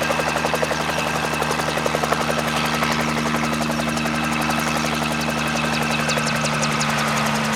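Helicopter running steadily: the rapid chop of the rotor blades over a steady engine and turbine hum.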